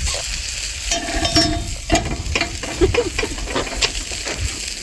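Meat sizzling on a grill over a campfire: a steady frying hiss with scattered sharp clicks and crackles.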